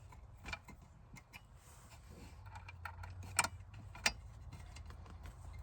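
Small metal clicks and taps of a small Allen wrench and M3 screws being worked into tapped holes in sheet metal, with two sharper clicks about three and a half and four seconds in. A faint low hum grows underneath from about halfway through.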